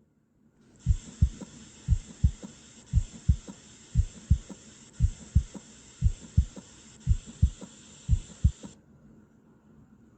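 Recorded heart sounds: about eight lub-dub cycles at roughly one beat a second, over a faint hiss. They cut off near the end. The first heart sound is normally split, a normal finding.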